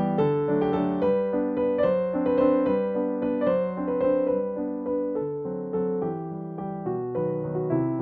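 Background piano music, a gentle melody of notes following one another at an even pace.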